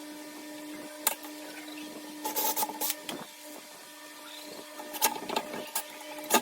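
Handling of wooden drawer parts and slide hardware: scattered knocks and short scraping rubs over a steady hum.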